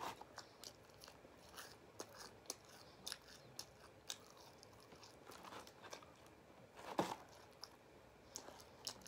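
A person chewing apple pie pastry bites close to the microphone: faint, scattered crunches and mouth clicks, with one louder crunch about seven seconds in.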